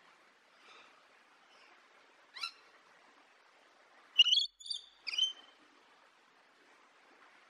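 Rainbow lorikeet giving short shrill calls: one about two and a half seconds in, then a quick run of three about four seconds in, the first of these the loudest.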